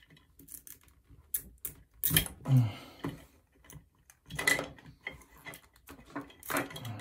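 Clicks and clattering of the plastic Dyson V6 battery-pack housing and a screwdriver being handled, with three louder rattling bursts about two, four and a half, and six and a half seconds in.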